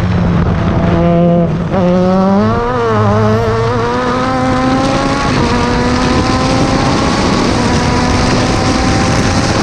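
Open-wheel race car engine heard onboard, pulling hard under acceleration: after a brief dip about a second and a half in, its pitch climbs steadily, drops once at an upshift about five seconds in, then climbs again. Steady wind and road rush underneath.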